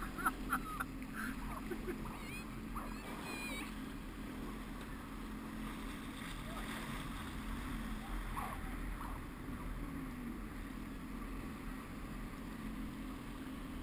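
Sea-Doo jet ski engine idling low with a steady hum, with water lapping around the hull.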